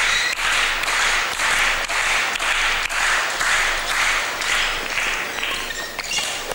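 Badminton hall crowd applauding a won point, a dense patter of many hands clapping that eases off slightly toward the end. A few short high squeaks come near the end.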